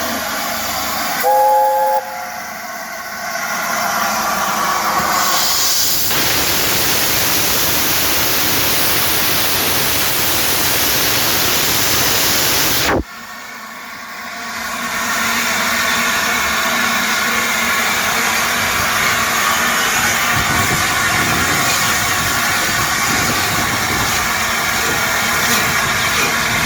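LNER A4 steam locomotive Sir Nigel Gresley giving a short blast on its chime whistle about a second in, then steam hissing loudly and steadily. The hiss cuts off abruptly about halfway through and builds back up a second or two later.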